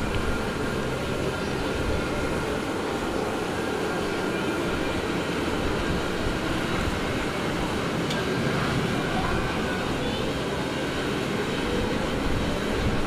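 Wind buffeting the microphone: a steady rush with an uneven low rumble, and faint sustained tones beneath it.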